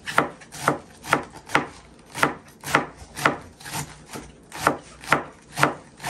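Kitchen knife slicing cabbage thinly on a cutting board: regular chopping strokes at a steady pace of about two a second.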